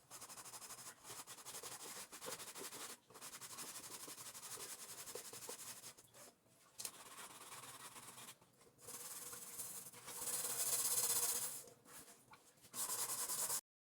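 Rubbing, scrubbing noise in irregular stretches with short pauses, loudest about ten to eleven and a half seconds in, then cutting off abruptly near the end.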